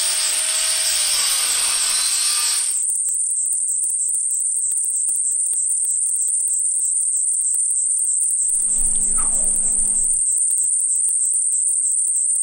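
Ambient soundtrack with a steady high-pitched cricket-like chirring throughout, a hissing swell that fades out about two and a half seconds in, and a falling swoosh over a low hum about nine seconds in.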